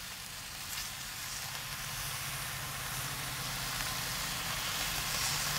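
Homemade bacon frying on a Little Griddle flat-top over a gas grill, the sizzle growing steadily louder as the strips heat, with a low steady hum underneath.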